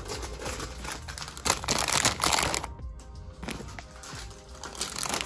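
Crinkling of plastic snack-chip bags being handled in a vending machine's spiral coils, loudest for about a second starting a second and a half in, over background music.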